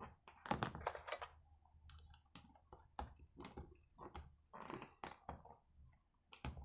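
Small screwdriver turning screws into a plastic brushcutter throttle-handle housing: faint, irregular clicks and knocks of the metal tip and the plastic case.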